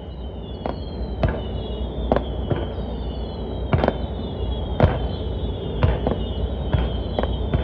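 Fireworks going off at irregular intervals, about ten bangs of varying strength, with several high whistles sliding down in pitch that overlap throughout. A steady low rumble runs underneath.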